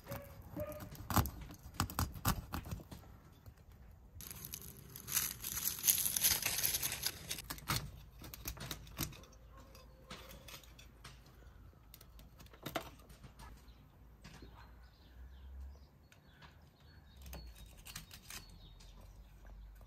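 A large chef's knife scraping along a whole carp on a wooden cutting board: irregular clicks and scrapes at first, then a dense run of rasping strokes about four to seven seconds in, followed by scattered lighter scrapes and taps of the blade.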